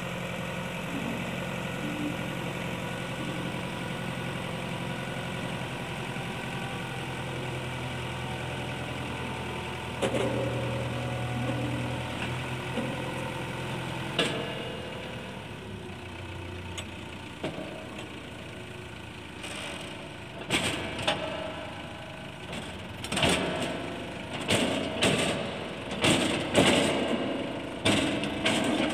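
Sonalika DI 750 tractor engine running steadily while it drives the hydraulic ram that tips the trolley bed to dump its load of earth. About two-thirds of the way in, the engine note fades and a run of loud, irregular bursts of noise takes over.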